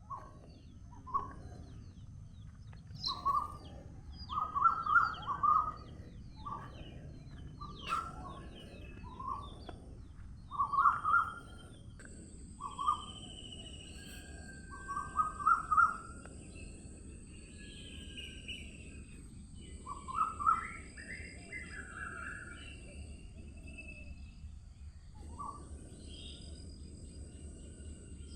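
Songbirds calling: short call notes repeated singly or in quick runs of two to four, with higher chirps between them, over steady low background noise. A thin steady high-pitched hum comes in about halfway through.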